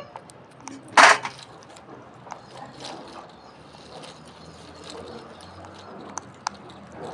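Alexandrine parakeet giving one short, loud, harsh squawk about a second in, followed by faint scattered clicks.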